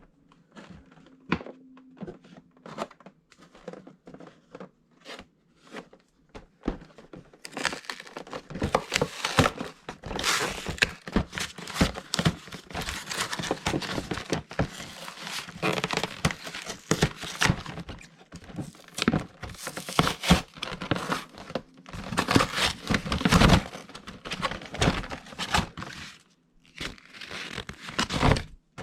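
Toy packaging being opened by hand: a few light clicks and taps, then from about seven seconds in, continuous crinkling and tearing.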